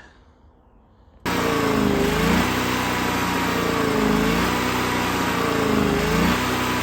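Back-up generator's small engine running, starting abruptly about a second in; its pitch dips and recovers every couple of seconds.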